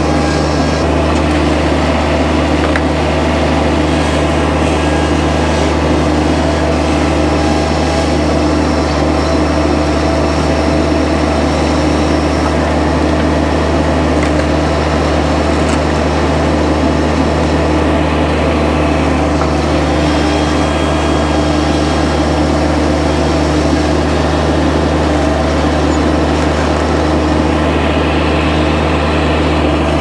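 A small engine running steadily at one constant speed, with no revving, from the mini skidsteer or the log splitter at work.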